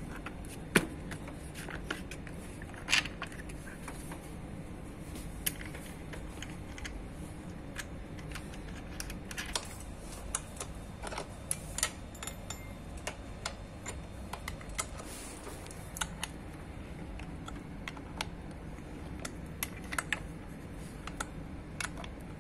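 Irregular small metal clicks and taps of an Allen key turning a bolt on a steel elliptical climber frame as the bolt is tightened, with a couple of sharper knocks in the first three seconds.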